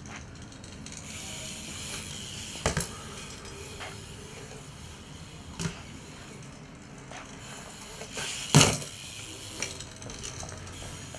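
BMX bike riding on concrete: tyres rolling under a steady noise, and a few sharp knocks from the bike hitting the ground, the loudest about eight and a half seconds in.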